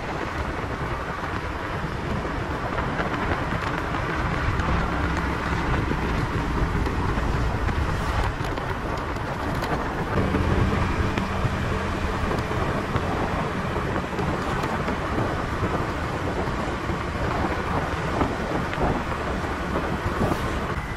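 Steady wind noise on the microphone of a moving motorcycle, with the motorcycle's engine running underneath.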